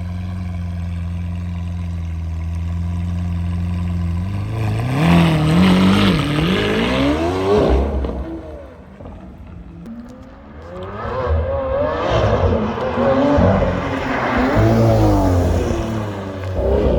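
Lamborghini Aventador's V12 engine through a custom valve-controlled exhaust, idling steadily, then revved up and down in quick repeated blips from about four seconds in, settling briefly around the middle before a second bout of revving.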